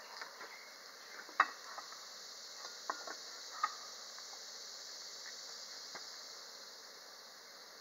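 Cast-iron Dutch oven lid and metal lid lifter clinking as the lid is lifted off and set down, a few sharp metallic clinks with the loudest about a second and a half in. A steady high hiss runs underneath.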